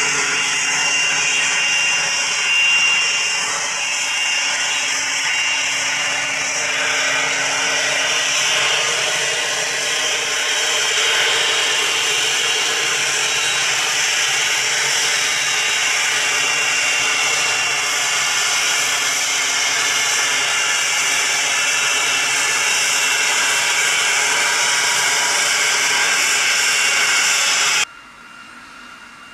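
Cessna Citation XLS twin-turbofan business jet taxiing close by, its engines at taxi power giving a loud, steady hiss with a thin high whine. The sound cuts off suddenly near the end, leaving a much quieter hiss.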